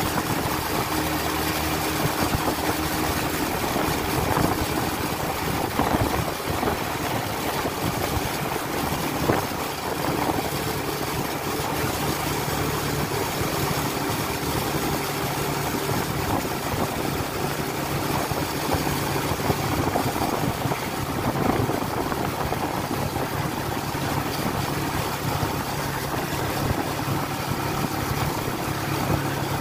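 Vehicle engine running steadily at cruising speed, with constant road and wind noise from the moving vehicle.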